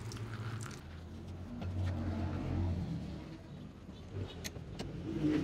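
Low rumble of a motor vehicle, swelling about two seconds in and then fading, with a few light clicks near the end.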